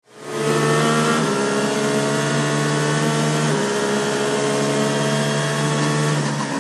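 A pack of race car engines running at high revs, fading in and then holding loud and steady. The engine pitch shifts in steps about a second in, around three and a half seconds, and near the end, like gear changes. It has the even sound of racing-game engine audio.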